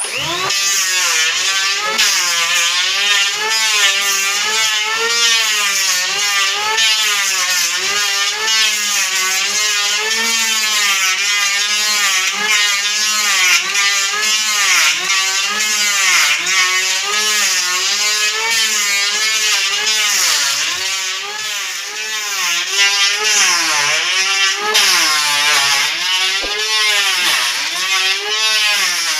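Electric hand planer running as it shaves the edge of a wooden door, its motor pitch repeatedly dipping and recovering as the blades bite into the wood.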